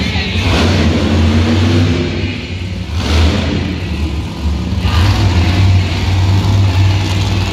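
Monster truck engine running with a deep steady rumble, revving up in several surges as the truck drives slowly across the dirt.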